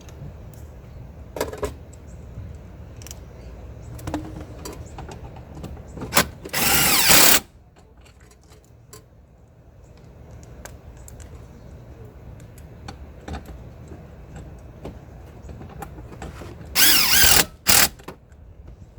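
Power drill with a 5/16-inch socket running in two bursts of about a second each, one about a third of the way in and one near the end followed by a short extra burst, driving fasteners back in while the console and armrest are reassembled. Light clicks and knocks of handling come between the bursts.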